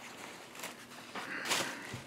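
Handling noises: rustling and light knocks as things are picked up and moved about, loudest about one and a half seconds in.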